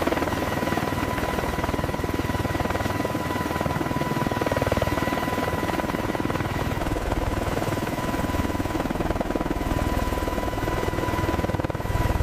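Helicopter in flight: a continuous rapid rotor chop with a steady high turbine whine over it.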